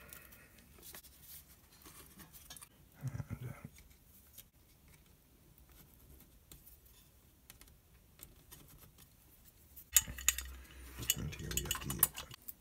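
Small plastic and metal parts of a car navigation display unit being handled and screwed together with a hand screwdriver: scattered light ticks, a duller knock about three seconds in, and a burst of clattering clicks near the end.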